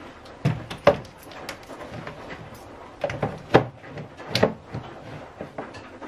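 Plastic containers and buckets knocking and clattering as they are moved about on shelving: a handful of sharp hollow knocks, the loudest about a second in and again just past the middle.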